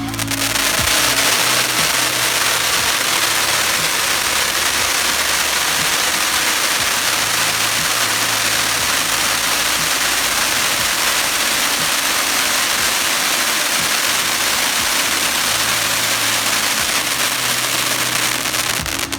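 Fireworks going off with a loud, steady hiss that starts suddenly and cuts off near the end, with music faintly underneath.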